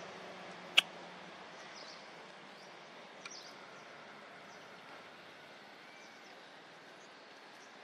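Quiet outdoor ambience with a few faint, short, high chirps, broken by one sharp click about a second in and a much smaller click a few seconds later.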